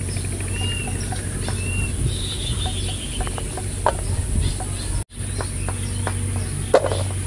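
Outdoor ambience of birds calling, with short repeated chirps and a falling trill, over a steady low hum. A few sharp clicks are scattered through it, and the sound cuts out briefly about five seconds in.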